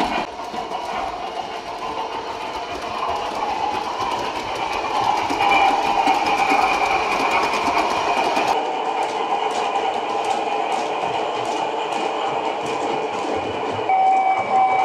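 Gauge 1 model train running on its track: a steady motor hum with the wheels ticking rapidly over the rail joints. A steady higher tone comes in near the end.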